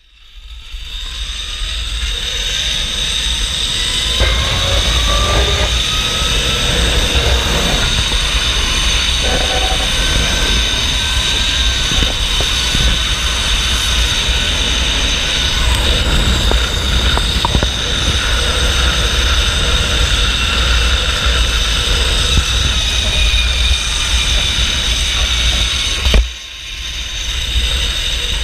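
Zip-line trolley pulleys rolling fast along the steel cable: a steady rolling whir that builds over the first few seconds, with a faint whine rising in pitch as the rider picks up speed, and wind buffeting the microphone underneath. The noise dips briefly near the end, then carries on.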